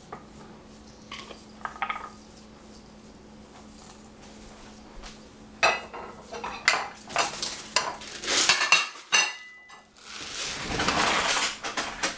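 Small glass spice jars and their metal screw-on lids clinking and knocking on a countertop and cutting board: a few faint knocks at first, then from about halfway a busy run of sharp clinks and clicks, some briefly ringing, ending in a dense rattle. A faint steady low hum lies underneath.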